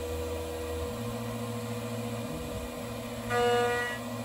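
Small CNC milling machine facing an aluminium part at 45 degrees: the spindle whines steadily, the axis drive motors sweep up and down in pitch as the table moves, and a little over three seconds in the end mill cuts into the metal with a louder ringing tone for under a second.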